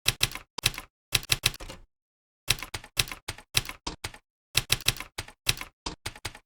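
Typing on a computer keyboard: quick keystrokes in three runs, with short pauses about two and four seconds in.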